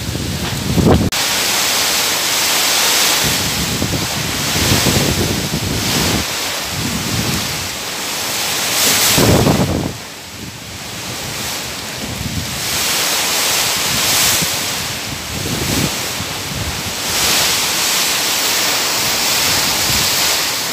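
Typhoon winds gusting with heavy rain, the gusts swelling and easing every few seconds. Wind buffets the microphone with low rumbles, loudest about nine seconds in.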